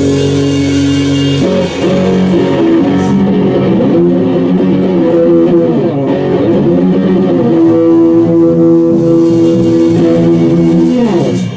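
Amplified electric guitar and bass playing loud rock, with held notes and wavering string bends in the middle. The playing stops abruptly near the end.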